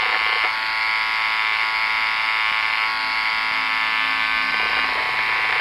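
Electric hair clippers running steadily, trimming outlines into hair, with a continuous buzzing whine.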